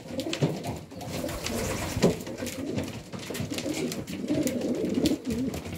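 Domestic pigeons cooing in a loft: low, warbling coos run on and overlap, with scattered light taps and clicks.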